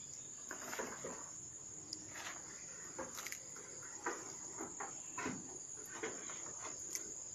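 Insects trilling in one steady, high, unbroken tone, with scattered soft rustles and taps close by.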